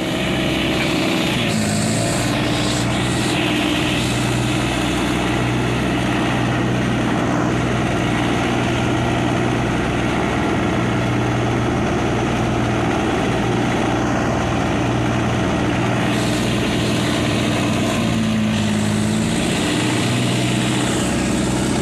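Mitsubishi 4DR5 four-cylinder diesel engine running steadily at speed in an open flatboat, with water rushing along the hull.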